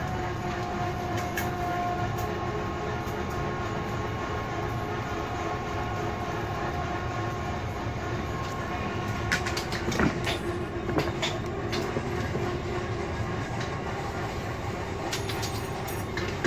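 Steel cord stripping machine for steel-cord conveyor belts running with a steady mechanical drone. A few sharp clicks and knocks come about two-thirds of the way in and again near the end.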